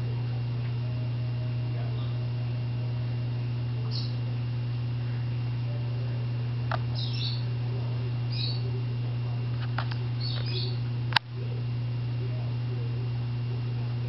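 Sun conures giving a few short, high chirps, over a steady low hum, with a single sharp click a little after the middle.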